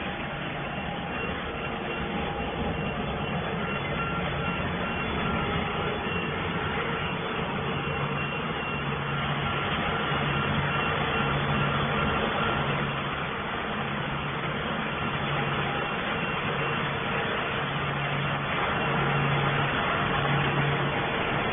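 Cable production line machinery running: a steady mechanical noise with a low motor hum that swells and fades unevenly.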